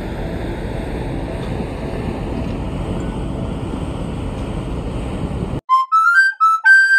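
Steady rumble of a car ferry's engines with wind and sea on the open deck, cut off abruptly about five and a half seconds in. A short chime tune follows, several bright notes climbing in pitch.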